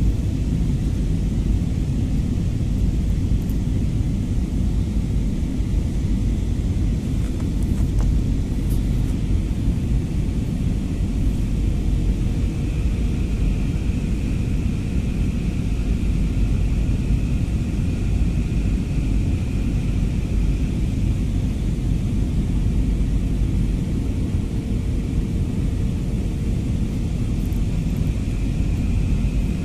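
Steady low rumble of a jet airliner's cabin in flight, engine and airflow noise heard through the fuselage as the plane descends toward landing. A faint high whine comes and goes over it.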